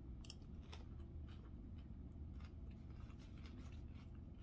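A person chewing a mouthful of chicken salad, with faint scattered crunches and mouth clicks over a low steady hum.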